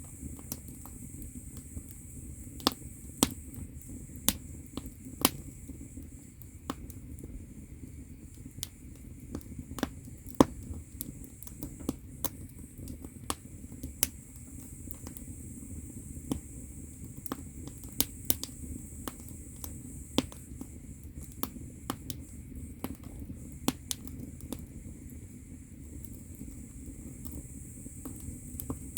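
Firewood crackling as it burns in a traditional Korean agungi firebox: irregular sharp pops, a few much louder than the rest, over a low steady rumble of the fire.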